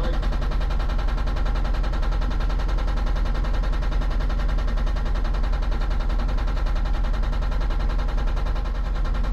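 Hydraulic breaker hammer on a Hitachi 160 excavator pounding rock in a fast, steady run of blows over the excavator's engine, the rock not yet giving way.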